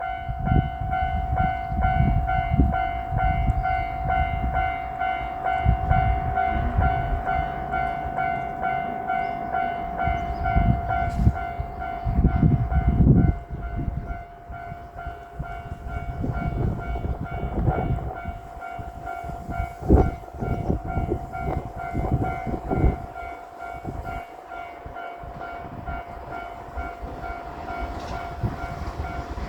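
Japanese railway level-crossing warning bell ringing its repeated 'kan-kan' clang, over an uneven low rumble. The approaching train grows louder near the end.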